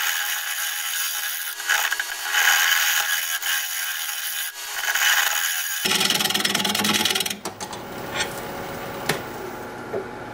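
Bowl gouge cutting into the inside of a spinning live oak bowl on a wood lathe: a rough scraping hiss that swells and fades with each pass. About seven seconds in the cutting stops, leaving the quieter lathe running with a few light ticks.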